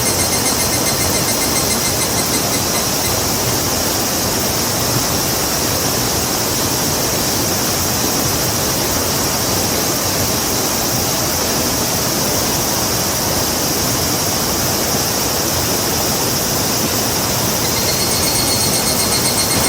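Rushing river water with a steady hiss. A high, pulsing trill sounds over it during the first two seconds and starts again near the end.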